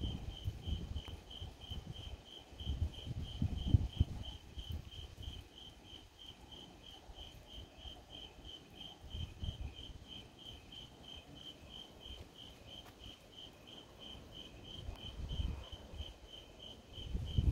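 Crickets chirping steadily, a high even pulse about three times a second. Irregular low rumbles rise under them a few times, the loudest near the start and near the end.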